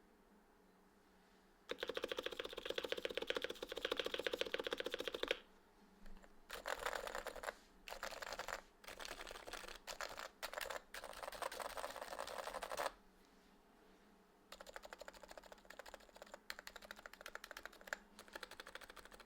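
Topre electrostatic-capacitive keyboard (Realforce R2 PFU with 30gf Metakeebs domes) being typed on quickly in bursts, dense runs of keystrokes broken by short pauses, with softer typing near the end.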